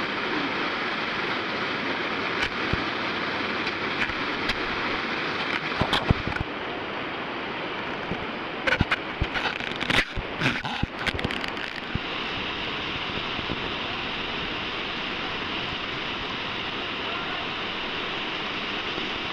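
Whitewater river rapids rushing steadily. A cluster of sharp knocks and crackles comes about halfway through.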